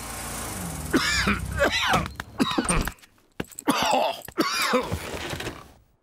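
A cartoon car's engine running as it drives up, then a deep-voiced cartoon bear coughing and groaning in two spells: a sick character with a bad cough.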